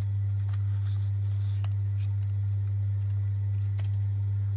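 Faint rustles and light clicks of paper banknotes being folded and tucked into a small card envelope, over a loud, steady low hum.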